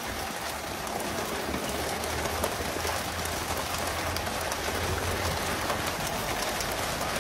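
Water spray and splashing pattering like rain, from the sprayers of a pole-and-line tuna boat throwing water onto the sea surface to keep the tuna feeding at the stern. A low hum runs under it through the middle.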